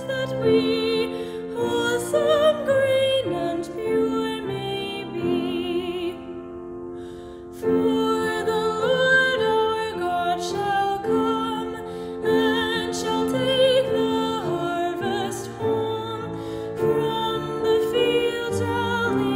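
A woman singing a solo with vibrato, holding long notes over sustained instrumental accompaniment chords. There is a brief pause about six seconds in.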